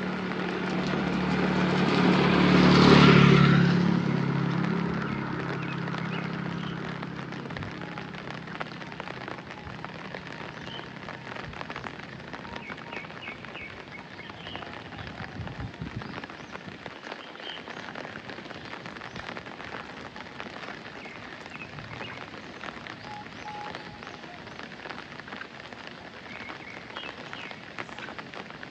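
Steady rain falling. Near the start a motor vehicle passes close by, swelling to its loudest about three seconds in and fading out by about five seconds.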